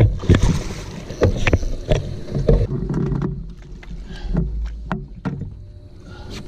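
Irregular knocks and thumps of handling and gear in a fishing boat, over a low rumble that fades about three and a half seconds in.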